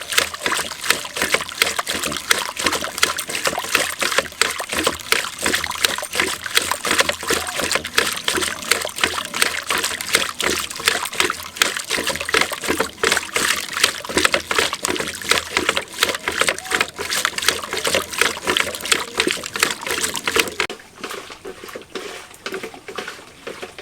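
Wooden cord-pulled churning stick twirling in a bucket of cream and water: fast, irregular sloshing and splashing that dies down about 21 seconds in. This is hand-churning cream to bring out butter.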